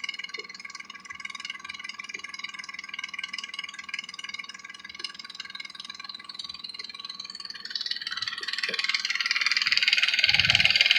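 Nissan Maxima 3.5-litre V6 idling with a rapid lifter ticking, the excessive lifter noise the owner is trying to quiet with a Motor Medic flush. The sound grows louder over the last few seconds.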